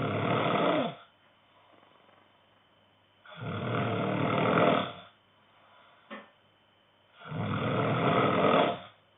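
A man snoring in his sleep: a long, loud snore about every four seconds, three in all, the first already under way at the start, with quiet breathing between.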